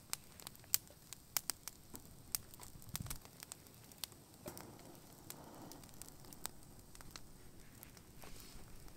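Small fire of dry twig kindling catching and crackling, with sharp, irregular pops. A soft thud about three seconds in and a brief rustle around the middle.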